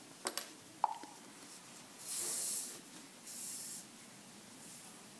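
Yarn drawn through crochet chain stitches, rubbing against the stitches in two short hisses: the louder about two seconds in, a shorter one a second later. A couple of small clicks come before them in the first second.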